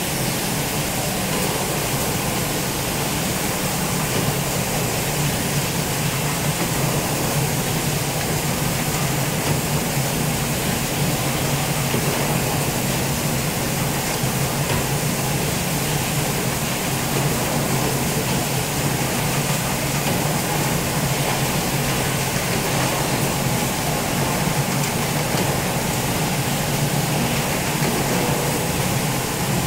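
Automatic syringe assembling line running, a steady mechanical noise with a low hum and no distinct strokes or clicks.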